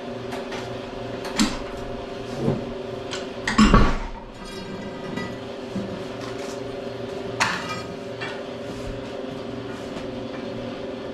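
Steel pry bar clanking against the steel plates and the base of a heavy milling machine as the machine is levered along, a few sharp metal clanks with the loudest about three and a half seconds in and another near seven and a half seconds. A steady hum runs underneath.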